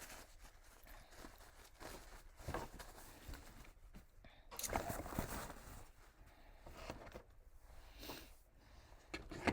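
Close-up eating sounds: chewing a KFC biscuit, with small crunches and clicks in short scattered bursts.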